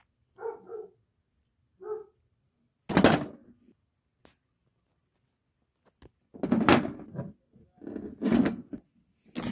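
Slams of plastic wrestling action figures in a toy ring: heavy thuds about three seconds in and again near the end. Before them come a few short high yelps.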